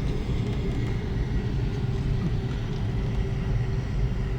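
Car driving slowly, its engine and tyres making a steady low rumble heard from inside the cabin, with a faint steady hum over it.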